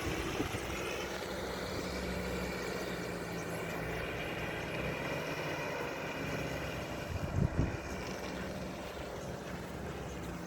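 Nissan Terrano WD21's engine running steadily off-road, with a brief low thud about seven and a half seconds in.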